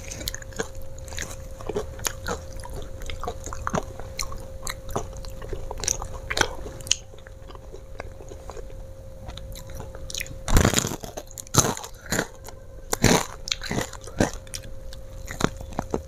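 Close-up crunching and chewing of crispy battered fried chicken, with a run of louder crunchy bites about ten to thirteen seconds in.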